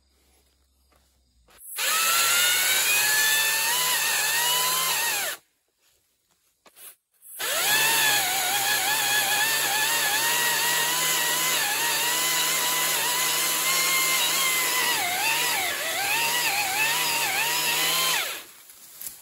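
Makita XAU02 36V cordless pole saw's brushless motor and chain running as it cuts an overhead branch, in two runs: a short one of about four seconds starting about two seconds in, a pause, then a long cut of about ten seconds. The steady whine dips in pitch now and then as the chain loads up in the wood.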